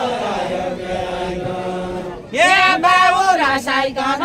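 Unaccompanied Deuda folk singing: a group of singers holds a chanted line together, then about two seconds in a single, louder voice takes up the next line.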